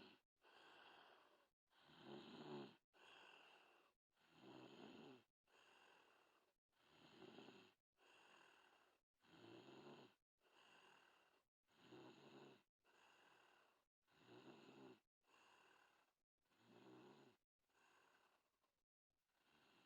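A little girl snoring faintly in her sleep: a louder, rougher breath alternates with a softer one in an even rhythm, about one full breath cycle every two and a half seconds.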